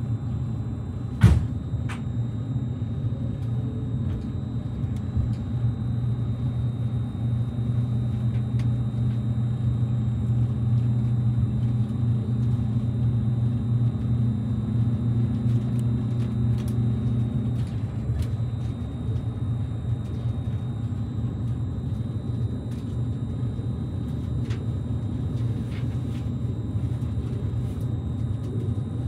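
Steady low hum and rumble inside a JR Kyushu 787 series limited express car at a station platform. There is a sharp click about a second in, and the low hum swells through the middle and then drops back about two-thirds of the way through.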